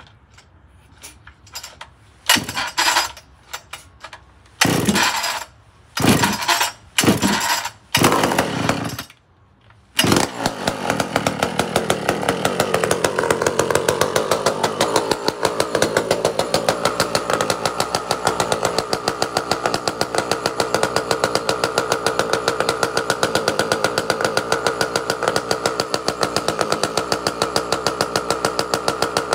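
Cold start of a Pioneer P-51 two-stroke chainsaw fitted with a new carburetor. It gives several short bursts as it is pulled over, catches about ten seconds in, and then settles into a steady run.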